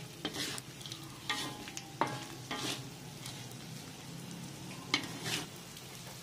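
A spatula stirring and scraping a thick chilli sambal with fried potatoes, anchovies and petai beans around a wok, in about six irregular strokes over a low sizzle.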